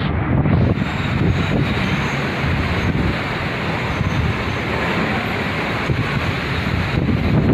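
Strong wind blowing hard and buffeting the microphone, over a steady hiss of heavy rain.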